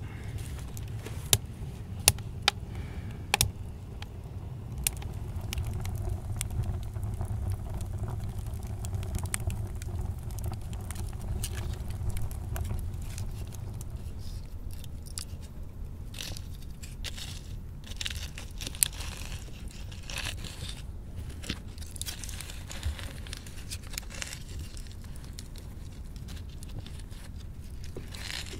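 Wood fire burning in an adobe rocket stove: a steady low rumble with scattered crackles and pops, and several sharp clicks in the first few seconds.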